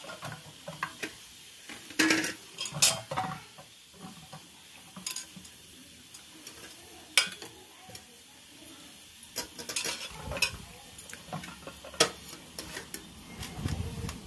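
Hands squishing and rubbing a wet spice marinade into a whole raw chicken in a steel bowl. Soft wet squelching is broken by irregular sharp knocks and clinks as the bird and the hands bump the metal bowl.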